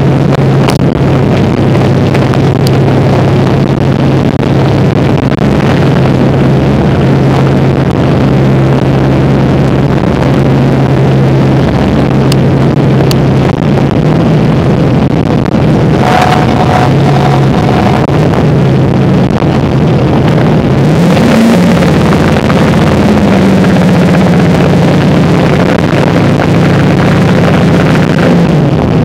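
Work boat's engines running steadily under heavy wind and sea noise. About 21 seconds in the engine note rises and then holds at a higher pitch.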